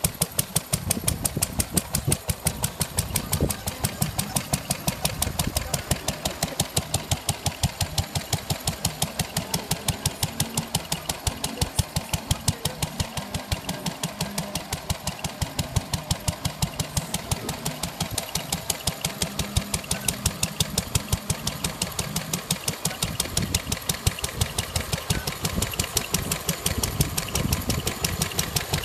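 Vintage single-cylinder stationary engine running steadily under light load, belt-driving a model Ferris wheel. It has an even, regular beat of about five strokes a second.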